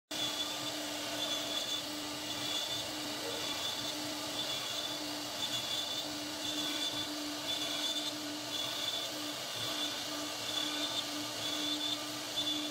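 CNC router spindle running with its carving bit cutting a relief pattern into a wooden panel: a steady machine noise with a low hum and a high whine that comes and goes about once a second.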